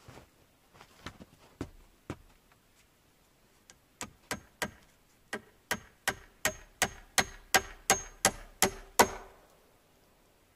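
Hammer nailing into a wooden pole of a frame: a few scattered knocks, then a steady run of blows about three a second from about four seconds in, growing louder, with a ringing note on the later strikes. It stops about nine seconds in.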